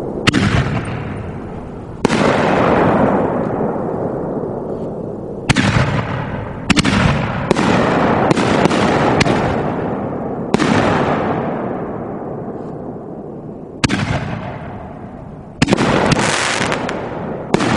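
1.75-inch 60-gram canister shells (Dominator Sky Titan) fired from mortar tubes and bursting overhead: a run of sharp booms, several close together around the middle, each trailing off in a long rolling echo.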